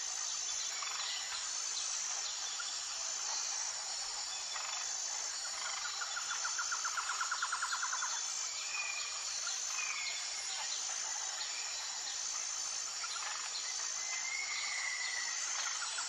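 Tropical jungle ambience: a steady chorus of insects with a high trill repeating about once a second. About six seconds in comes a rapid pulsing buzz lasting about two seconds, and in the second half a bird gives several short whistles.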